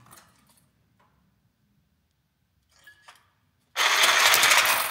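Cordless reciprocating saw (Sawzall) starting up about three-quarters of the way in and cutting into a battery module's aluminium bus bar for about a second, loud and even, then cut off and winding down. Its blade guard shorts two separate blocks of cells, throwing sparks.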